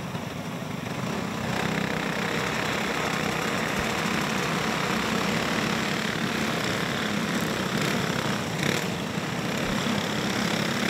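A pack of dirt-track go-kart engines running under caution, growing louder about a second and a half in as the karts come by, then staying steady.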